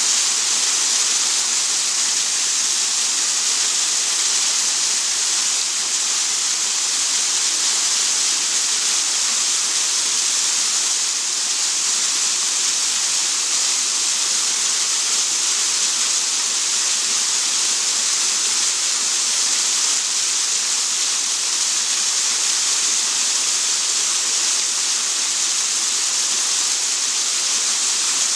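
Waterfall: a steady, hissing rush of falling water that does not change.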